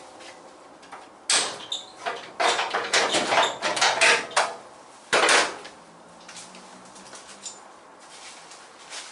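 Irregular metallic clattering and scraping from hand work on a stripped Classic Mini body shell: one burst a little over a second in, a quick run of knocks and scrapes from about two to four and a half seconds, and one more burst near five seconds.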